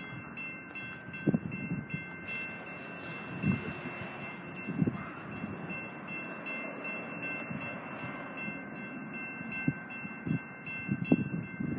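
Grade-crossing warning bell ringing steadily as a train approaches, heard as a fast, continuous high ding. Irregular low thumps sound under it and come more often near the end.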